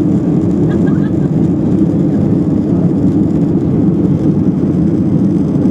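Steady cabin noise inside a Boeing 737-800 climbing out after takeoff: its two CFM56-7B26 turbofan engines and the rush of air, a deep, even noise that holds level throughout.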